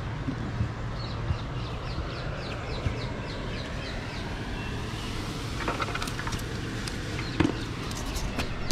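A small bird singing a quick run of short descending notes, about four a second, for a few seconds over a steady low rumble. A few sharp knocks and taps near the end.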